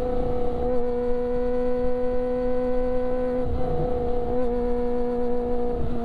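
Kawasaki Ninja ZX-25R's 250 cc inline-four through an Akrapovic exhaust, running at steady high revs while riding, with a steady note that wavers briefly twice midway.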